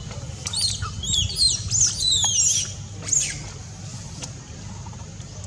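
Baby monkey giving a quick run of high-pitched squeals that bend up and down in pitch, about eight over some three seconds, then falling quiet, over a steady low rumble.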